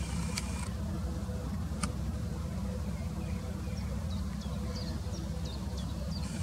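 Steady low rumble of distant road traffic. In the second half, a quick series of short, high, falling chirps from a small bird; two faint clicks come early on.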